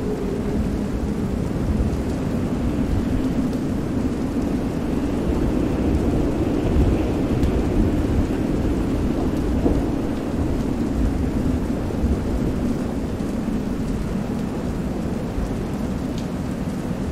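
Designed stormy-sea ambience: steady rain over a continuous low rumble of thunder, wind and waves.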